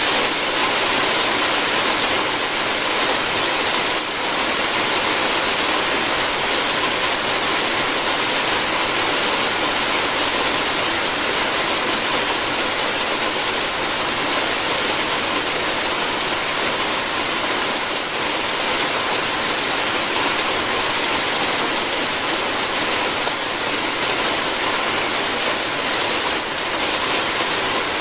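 Rain falling steadily on a roof, an even, dense hiss without let-up.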